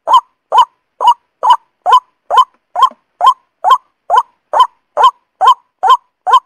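Recorded lure call of the truok sawah, a paddy-field bird: one short, honking call note repeated evenly, a little over two times a second, with each note sweeping briefly upward.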